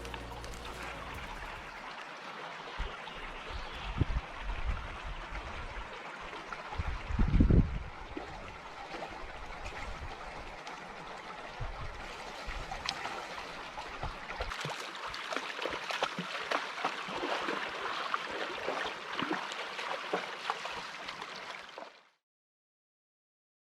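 A small stream running and gurgling steadily, with a few low thumps about 4 and 7 seconds in; it cuts off abruptly near the end.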